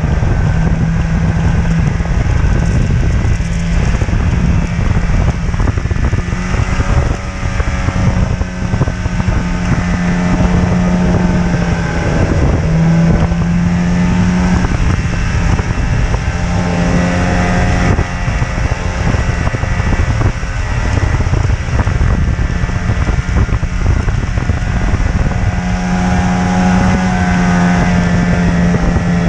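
Snowmobile engine running under way, heard from the rider's seat, its pitch rising and falling several times as the throttle changes.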